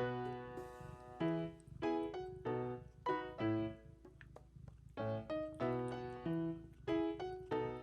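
Background music: a light, bouncy piano tune with short, rhythmic chords.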